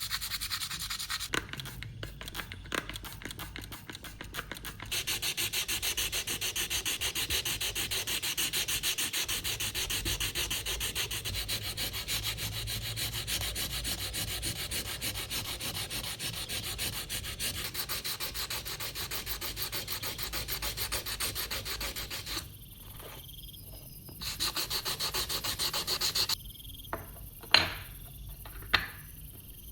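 Sanding: abrasive paper rubbing steadily on a knife under restoration. The rubbing stops twice in the last third, with two sharp clicks near the end.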